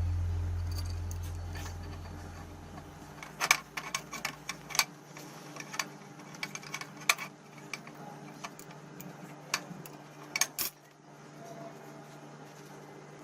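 Scattered light metallic clinks and taps, like small metal tools or parts being handled and set down, over a faint steady hum. A low sustained note fades out over the first few seconds.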